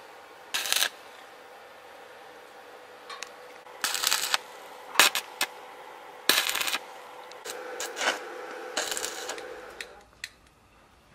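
Stick (arc) welder tacking a steel wire grill grate: about six short crackling bursts of the arc, each under half a second, with a steady hum between some of them.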